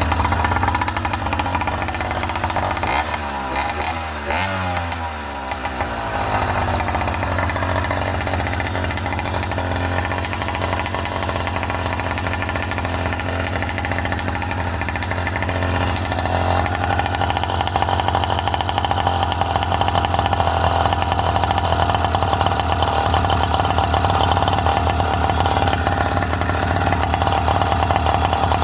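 Small engine of a motorized bicycle running under way; about three seconds in the revs drop briefly and climb again, then it runs steadily, a little louder in the second half.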